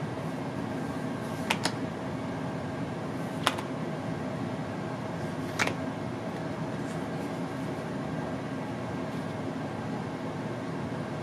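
Playing cards snapped off the deck and dealt down onto a cloth close-up mat: three short sharp clicks, about a second and a half, three and a half and five and a half seconds in, the first a quick double. Under them a steady mechanical hum, like a fan, runs throughout.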